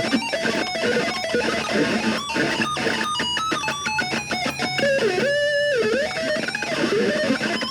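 Ibanez RG electric guitar played through distortion: quick picked single-note runs, with one held note bent down and back up about two-thirds of the way through.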